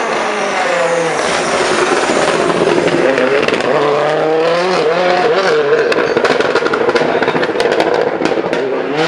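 Ford Fiesta WRC rally car's turbocharged four-cylinder engine revving up and down through a hairpin as it approaches, passes close and pulls away, with a run of sharp cracks in the later seconds.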